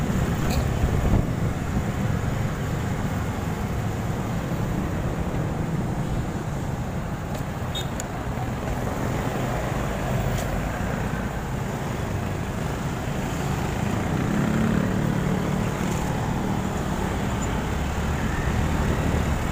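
Motorcycle on the move, heard from the rider's seat: steady engine and road noise, with traffic around.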